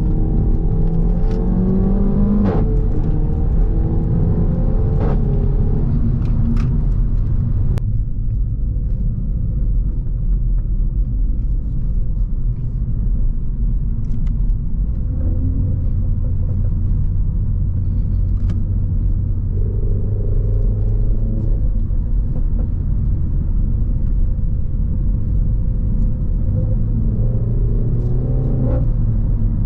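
Renault Mégane 4 RS 280's 1.8-litre turbo four-cylinder engine with a catless exhaust, on the move. It climbs in revs with a few sharp cracks in the first eight seconds, then runs low and steady at light load, picking up briefly about twenty seconds in and again near the end.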